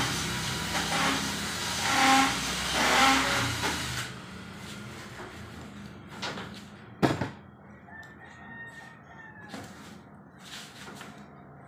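An animal calling twice in the background over a steady hiss, the hiss dropping away about four seconds in; a single sharp knock about seven seconds in.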